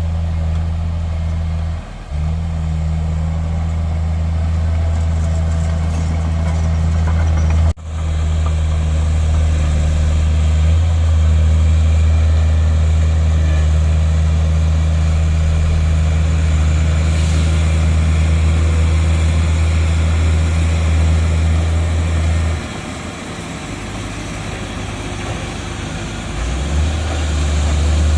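Heavy diesel engine of earthmoving machinery running steadily with a deep, low drone. It briefly breaks twice early on, drops for a few seconds near the end, then comes back up.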